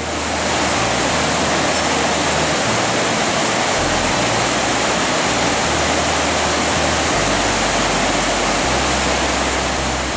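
Whitewater of a swollen, muddy mountain river rushing over boulders in a rocky gorge: a loud, steady rushing of water.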